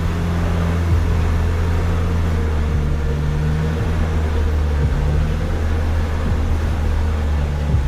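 Motor vehicle engine running with a steady low drone that shifts a little in pitch, with a few light knocks.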